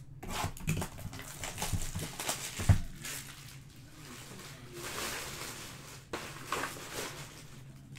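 Rustling and crinkling of a Topps Chrome Sapphire trading-card box and its packs being opened by hand. There is an irregular run of crackles, with one sharp thump about three seconds in as the loudest sound.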